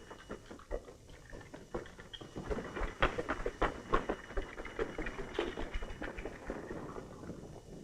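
Rapid, irregular patter of scrambling footsteps and scuffs on an old film soundtrack, sparse at first, thickening about two seconds in and thinning out toward the end.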